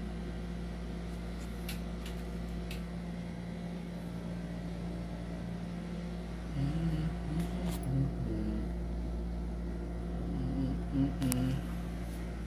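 Steady electric hum of a room air conditioner, with a few light handling clicks and some low mumbled vocal sounds about midway and near the end.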